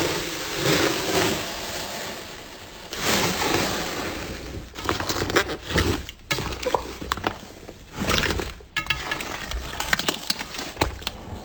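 Slime being squeezed and pressed by hand, crackling and popping: first a few swells of dense crackle, then from about five seconds in a busy run of sharp pops and clicks.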